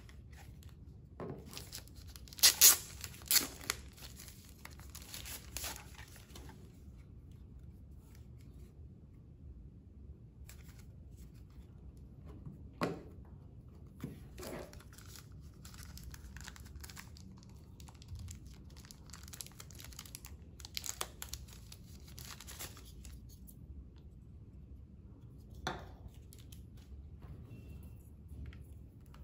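Protective wrapping being torn and crinkled off DJI Air 2S drone batteries, in rough stretches with a couple of sharp loud tears a few seconds in. A few light knocks come from the batteries and charger being handled on the table.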